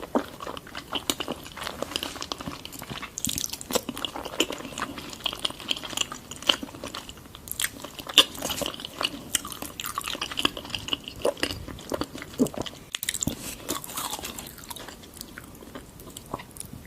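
Close-miked chewing and biting of raw salmon: irregular wet smacking and squishing mouth sounds with frequent small clicks.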